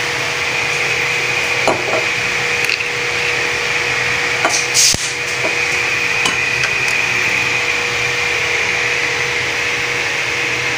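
Cooking oil sizzling steadily in a hot steel wok that still holds a little water from rinsing, just after the oil is poured in. A sharp knock about five seconds in, and a few light clicks.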